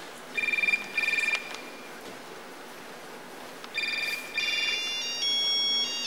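Mobile phones ringing with synthetic ringtones as the instruments of a concert piece. Two short beeping bursts come about half a second apart near the start; after a pause come two more, and from about five seconds in several phones hold steady tones of different pitches together, shifting pitch in steps like a chord.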